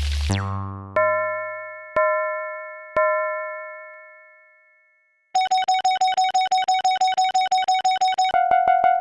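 Synthesized crossing-bell sounds: a tone sliding down in pitch and cutting off, then three bell-like dings about a second apart, each ringing away. After a brief silence, about five seconds in, a fast repeating electronic ding of a level-crossing warning bell starts, dropping slightly in pitch near the end.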